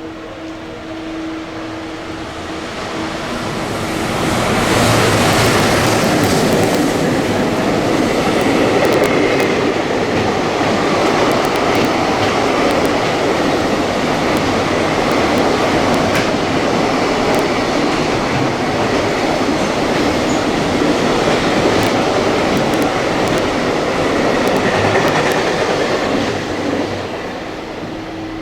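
A train running through the station without stopping. Its rumble builds about four seconds in, then the wheels clatter loudly and steadily on the rails for some twenty seconds before it fades near the end.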